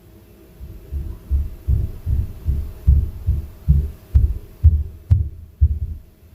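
Upstairs neighbours' footsteps coming through the ceiling as a dozen deep, dull thuds at a little over two a second, stopping shortly before the end; the low thudding is the inter-floor impact noise typical of Korean apartment blocks.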